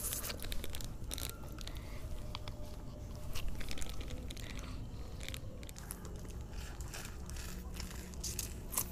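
Biting and crunching into frozen ice pops in plastic tubes, homemade tube 'Pepsi', with scattered, irregular sharp crunches of the ice.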